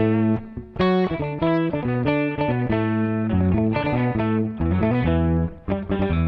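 Instrumental band music: several electric guitars play chords and melody lines over bass guitar, with two short breaks between phrases, about half a second in and near the end.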